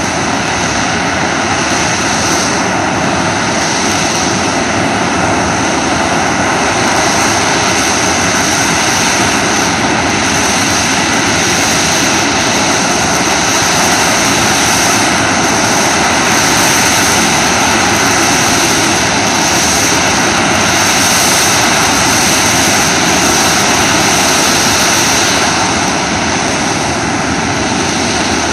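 Several fighter jets' engines running on the runway: a steady, loud jet roar with a high turbine whine over it, swelling a little past the middle and easing slightly near the end.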